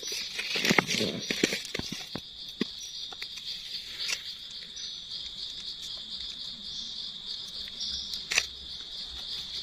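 A steady, high-pitched drone of insects, with crackling rustles of dry leaf litter and light knife clicks as mushrooms are cut from the forest floor, busiest in the first two seconds and again briefly about four and eight seconds in.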